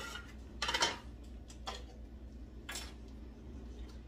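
A spoon stirring and scraping chopped onions and garlic in a pot: four short scrapes, the loudest just under a second in.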